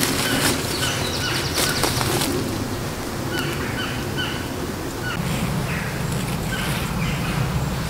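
A bird calling in short, rapidly repeated chirps. Under it are the rustling and clicking of a tarp and cord being handled, busiest in the first two seconds.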